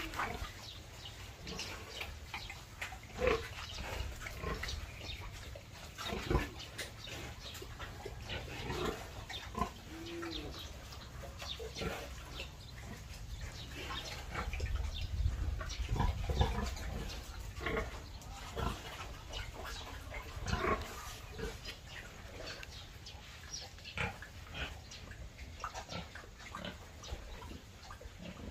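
Domestic pigs, a sow and her piglets, grunting with short calls scattered throughout, over a low rumble.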